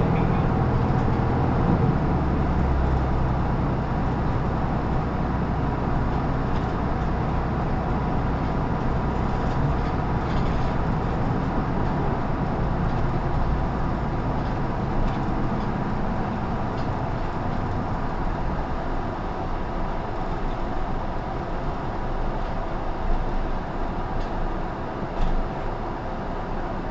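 Inside an Isuzu Erga Mio (LR234N2) city bus under way: its inline-six diesel engine and road noise run steadily. The engine note drops about two seconds in. Two short knocks come near the end.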